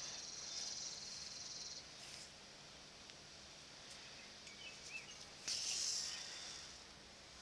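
Soft hiss and rustle of sinew being drawn through the punched holes of a leather pouch during hand stitching, with a louder drawn-out swish about five and a half seconds in as the thread is pulled long.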